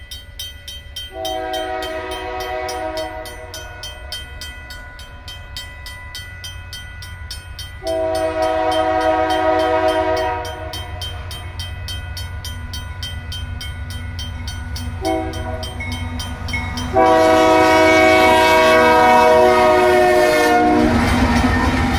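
Union Pacific freight locomotive's horn sounding the grade-crossing signal of two long blasts, a short one and a final long one. Under it a RACO mechanical crossing bell rings steadily in rapid strokes. Near the end the locomotives pass, adding a rush of engine and wheel noise.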